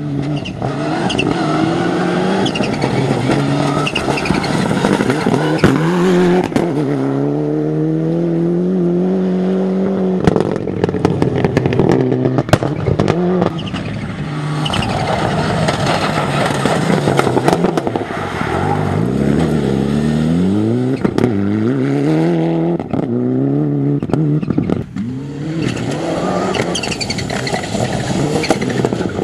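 Rally car engines revving hard at full throttle through gravel stage corners. The pitch climbs and drops several times with gear changes and lifts, with sharp cracks and clatter in between.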